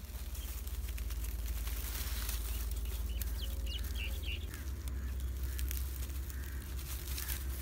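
Puppies moving about on dry straw and stalks, with irregular crackling and rustling, over a steady low rumble. A few short, high chirps come about three seconds in.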